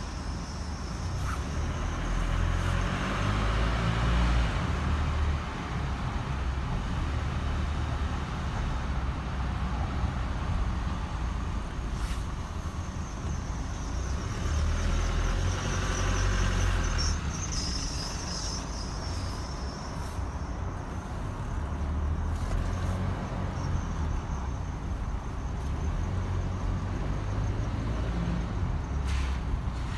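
2016 Chevy Colorado pickup moving at low speed, its driveline squeaking over the running noise. The squeak is traced to where the driveshaft enters the transfer case.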